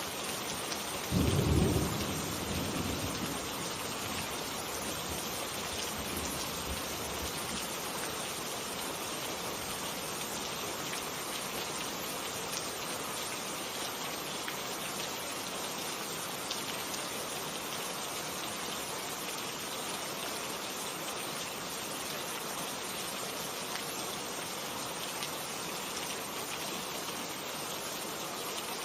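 Steady rain falling, with a clap of thunder about a second in that rumbles away over the next few seconds.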